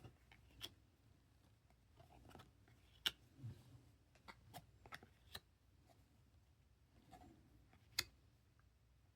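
Faint, scattered clicks and taps of glossy trading cards being handled and set down, with a sharper tap about three seconds in and another near the end.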